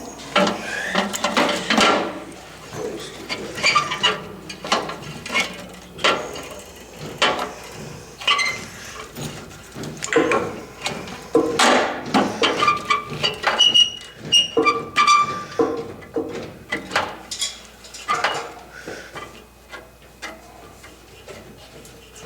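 Irregular metallic clanks, knocks and clicks of tools and pipe fittings being handled, with a few short squeaks.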